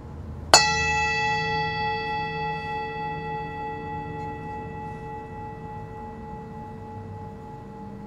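A metal bowl struck once, ringing with several clear tones that fade slowly.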